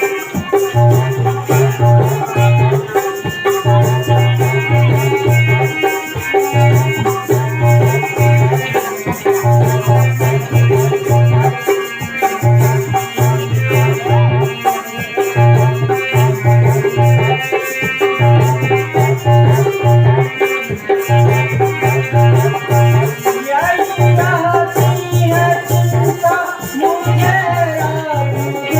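Instrumental music: a wavering melody over a repeating low beat, with a rattle or shaker keeping a fast rhythm.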